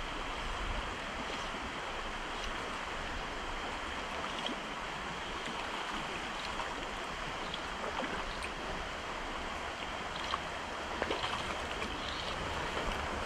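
Steady rush of a mountain stream's flowing water, with a few faint small ticks.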